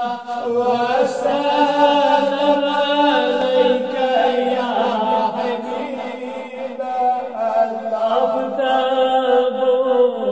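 Melodic chanted recitation of a darood, a devotional salutation on the Prophet Muhammad, sung by a voice holding long, slowly bending notes.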